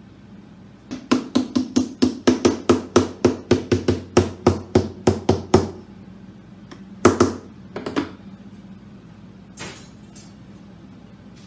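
Small hammer tapping quickly along a freshly glued strip on the centre seam of a guitar back, about four taps a second for some five seconds, then a few more knocks a little later.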